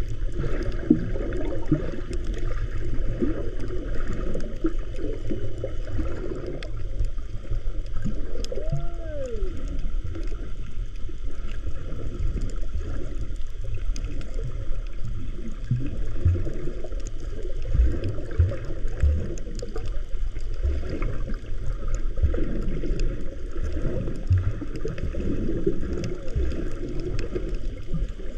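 Water gurgling and sloshing, heard muffled as on a camera in the sea, with small bubbling blips and low knocks throughout. About nine seconds in there is one brief tone that rises and falls.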